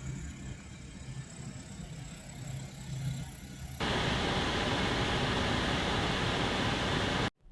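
A low steady engine-like hum, then about four seconds in a loud, even rush of wind noise on the microphone that cuts off abruptly near the end.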